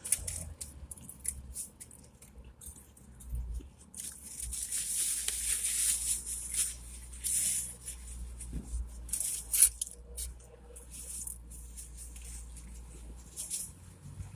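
Paper food wrapping and bag crinkling and tearing, with chewing and scattered sharp crackles during a meal. The densest rustling comes about four to eight seconds in, and a sharp crackle about nine and a half seconds in is the loudest.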